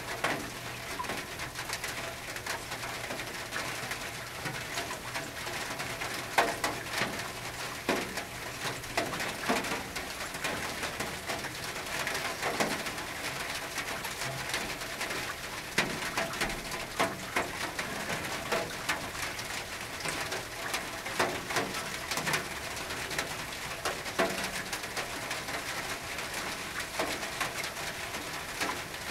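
Rain on a tin roof: a steady patter with many irregular heavier drops striking the metal.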